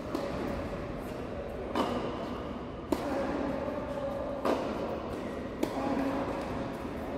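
Tennis rally: four sharp pops of racket strikes and ball bounces, one to one and a half seconds apart, echoing in a large indoor court hall.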